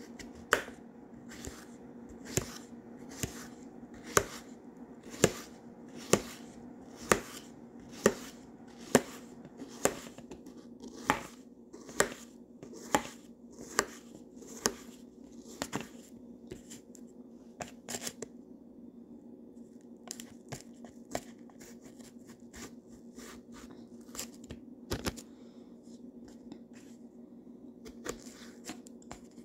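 Kitchen knife chopping a peeled cucumber on a cutting board, the blade knocking the board about once a second for some fifteen seconds. After that the cuts come fainter and irregular, with one louder knock near the end.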